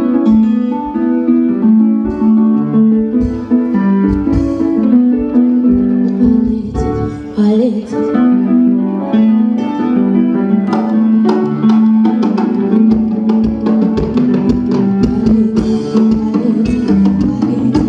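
Live band music: a keyboard plays a melodic line of held notes over drum hits.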